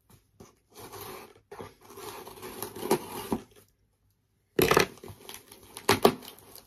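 Parcel packaging being torn open and crinkled by hand, with a few louder, sharper sounds near the end.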